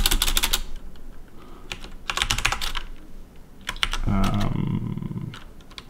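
Typing on a computer keyboard in quick bursts of keystrokes with short pauses between, while a line of C# code is written. About four seconds in there is a brief low hum of voice.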